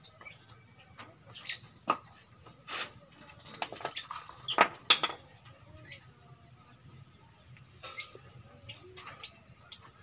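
Budgerigars giving short, scratchy chirps and squeaks at irregular intervals, loudest about five seconds in.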